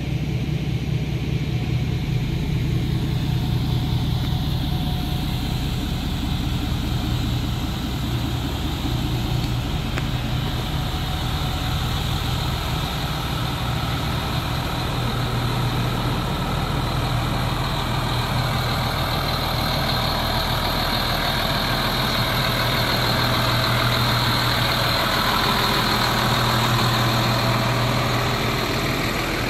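Fire engine idling steadily: a continuous low engine hum, growing somewhat louder and brighter over the last ten seconds or so.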